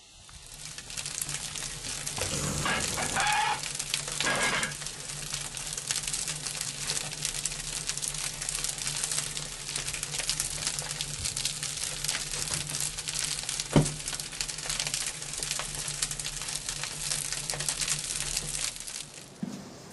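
Steam boiler-room ambience: a steady crackling hiss over a low hum. Two short pitched calls come about two and four seconds in, and a single sharp knock about fourteen seconds in. The sound cuts off just before the end.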